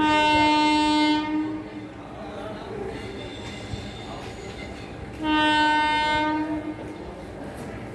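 Horn of an arriving express train's locomotive: two long blasts, each about a second and a half, the second about five seconds after the first, over the low rumble of the train.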